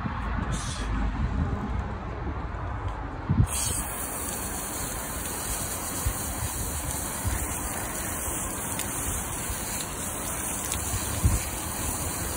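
Water spraying from a garden-hose spray nozzle onto a car's side window glass and running off it, a steady hiss that starts suddenly about three and a half seconds in: the glass being rinsed of the scale-removal compound.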